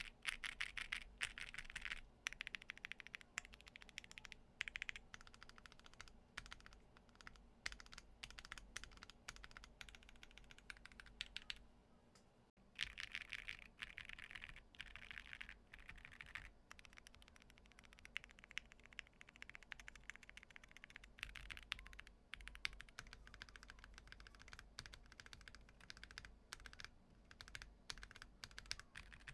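Typing on a mechanical keyboard with linear switches: a fast run of muted key clacks in a switch sound test, with a cut about twelve seconds in to a second typing run.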